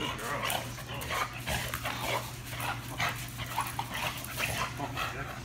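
A dog panting and scuffling while tugging on a ball-on-rope toy, a run of short irregular huffs and scrapes, over a steady low hum.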